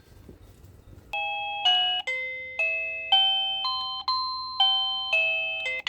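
Electronic doorbell chime melody from a PHYSEN wireless doorbell receiver: a string of bell-like notes, about two a second, each struck and fading, starting about a second in.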